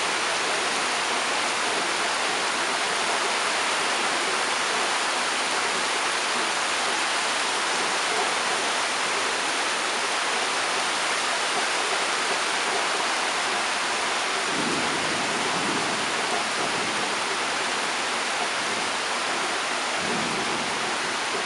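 Heavy tropical rain pouring down: a steady, even hiss that holds level throughout.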